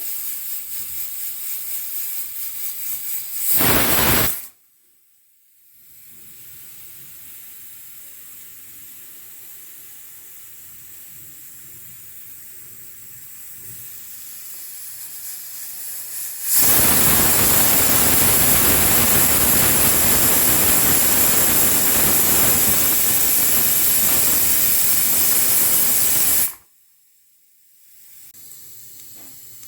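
Pressure cooker whistle venting steam twice. A pulsing hiss swells into a short loud blast that cuts off, then a softer hiss builds into a loud whistle lasting about ten seconds, which stops suddenly. The whistle is the cooker letting off steam once its pressure has built up.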